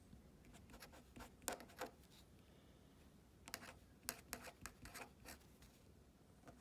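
Pen writing figures on a paper worksheet: faint scratching strokes in two spells, one from about half a second to two seconds in and another from about three and a half to five seconds in.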